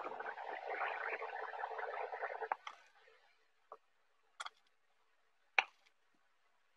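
Electric fan whirring steadily for about two and a half seconds, then cut off suddenly, followed by a few faint single taps of a knife on a wooden cutting board.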